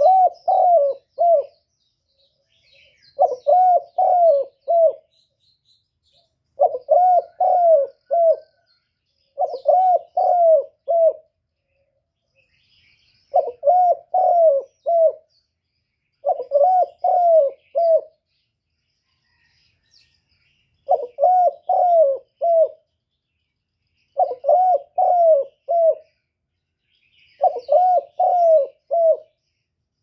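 Spotted dove cooing: a phrase of three to four coos, repeated about every three and a half seconds, nine times over. Faint high chirps of small birds lie between the phrases.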